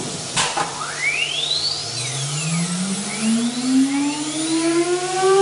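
CNC router's electric spindle spinning up: a whine that climbs steadily in pitch and levels off into a steady tone at the end. A brief sharp burst of noise comes about half a second in.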